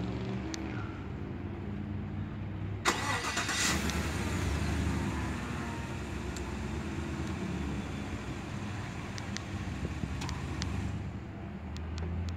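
A 2018 Chevrolet Tahoe's V8 is remote-started from the key fob. About three seconds in, the starter cranks briefly and the engine catches, then settles into a steady idle.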